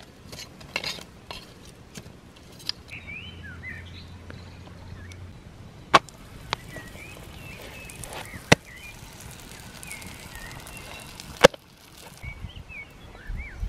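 Small birds chirping, with three loud, sharp knocks in the second half and lighter clicks near the start, from eggs and utensils striking clay bowls on a wooden table while eggs are cracked and beaten.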